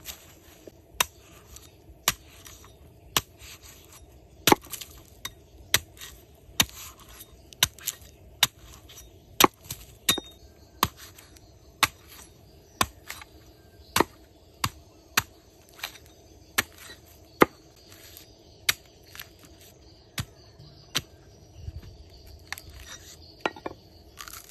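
Large knife chopping green coconuts on a wooden stump block: some thirty sharp blows at about one a second.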